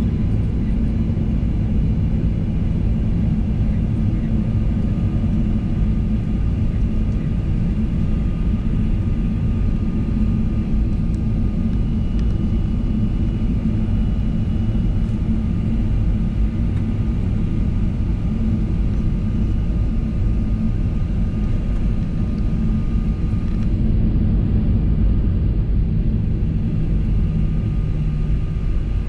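Steady, low drone of a Boeing 737-900ER's CFM56-7B jet engines heard inside the passenger cabin.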